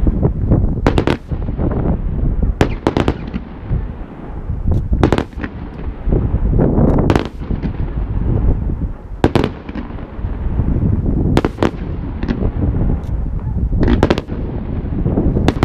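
Aerial firework shells bursting with sharp bangs every second or two, often in quick pairs, over a steady low rumble between the blasts.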